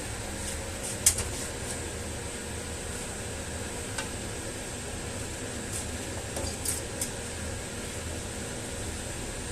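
TIG (argon) welding machine running with a steady hum and hiss, with a few short sharp clicks about a second in and again around six to seven seconds.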